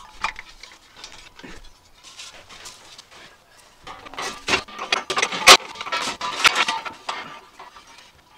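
Steel propane tanks knocking and scraping against an angle-iron rack as they are pushed into place: a few light clicks at first, then a cluster of loud metal knocks and scrapes in the middle, the loudest knock about five and a half seconds in.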